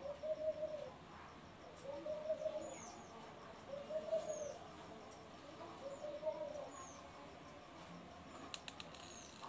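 A dove cooing in the background: four drawn-out coos about two seconds apart, with short high chirps from a small bird now and then and a few light clicks near the end.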